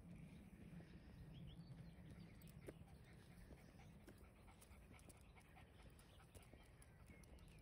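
A dog panting faintly, with scattered soft clicks of steps and a low rumble.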